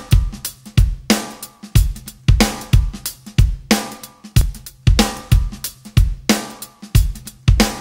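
Background music: a drum kit playing a steady beat, with kick drum, snare and cymbals hitting about twice a second.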